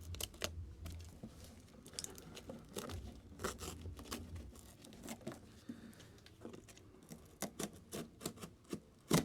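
A shipping box being torn and worked open by hand: tearing, crinkling and handling noises, with a quick run of sharp clicks and taps in the last couple of seconds and the loudest snap just before the end.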